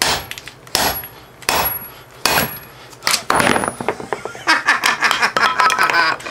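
Hammer blows on the steel core of a microwave oven transformer, striking to crack its welds: five sharp ringing strikes at an even pace, then a quick clatter of metal knocks near the end.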